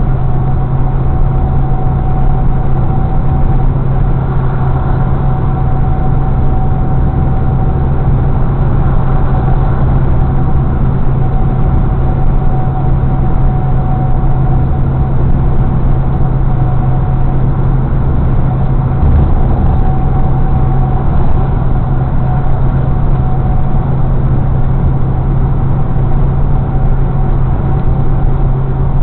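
Steady cab noise of a semi truck cruising at highway speed: a constant low diesel engine drone mixed with road and tyre noise, with a faint steady whine above it.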